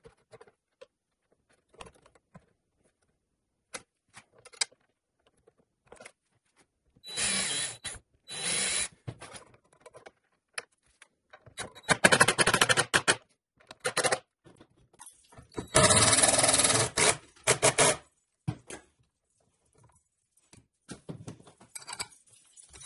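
Cordless drill driving screws through a metal pipe strap in several short bursts of one to two seconds each, with light handling knocks between.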